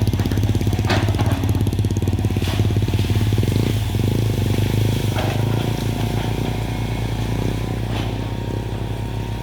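CAT excavator's diesel engine running steadily under work, with sharp cracks now and then as it breaks through jungle growth.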